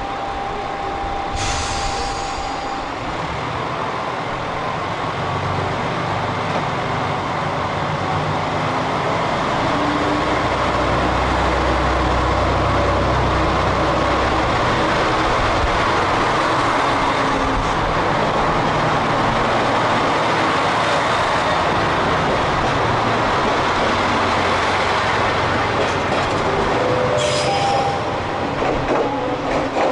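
JR Shikoku 2000 series diesel multiple unit pulling out of the platform: its diesel engines run up under load with a deep rumble that builds and stays loud as the cars pass close by. A short hiss comes about a second and a half in, and another near the end.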